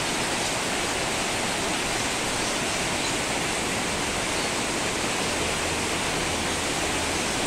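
Heavy rain pouring down on clay-tile roofs and trees: a steady, even roar of a downpour.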